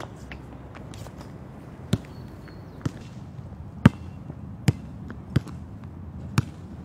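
A basketball bouncing on a court during a game: six sharp thuds at uneven spacing, about one a second, over a steady low background murmur.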